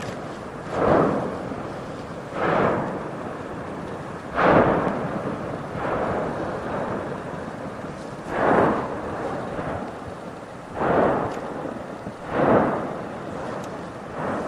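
Volcanic vent erupting in a series of explosions, about seven of them at irregular intervals of one and a half to two and a half seconds, each starting suddenly and dying away into a rumble: Strombolian bursts throwing out glowing lava.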